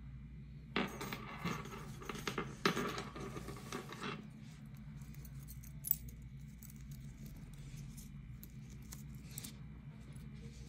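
Small gold metal hardware on a crocheted purse, a key ring and clasp charm, jingling and clicking as it is handled: a run of jingles for about three seconds starting about a second in, then one sharp click and a few faint ticks.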